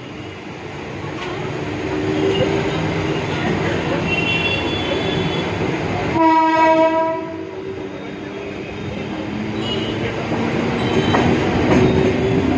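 Mumbai suburban local train (EMU) pulling out of a station, its wheel and running noise growing louder as it picks up speed. A little past the middle, one horn blast sounds for about a second.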